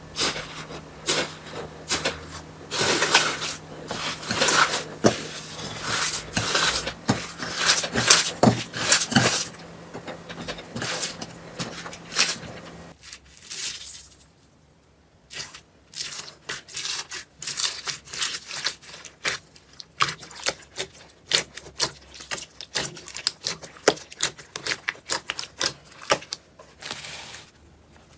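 Slime being worked: a quick, irregular run of small sticky pops, clicks and crackles. A faint steady hum sits under the first half and stops about halfway through, followed by a short lull, then denser popping.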